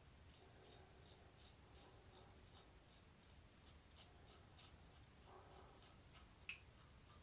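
Double-edge safety razor making quick, short strokes against the grain over lathered chin stubble: faint, crisp scrapes as the blade cuts the whiskers, about three a second.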